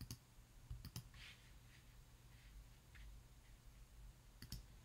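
Near silence, with a few faint ticks and a soft paper rustle as a page of a photobook is turned by hand.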